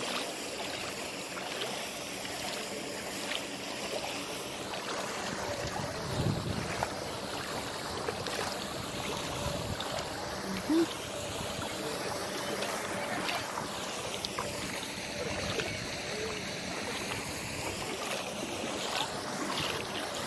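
Steady outdoor noise of wind and lake water, with a couple of brief bumps about six and eleven seconds in.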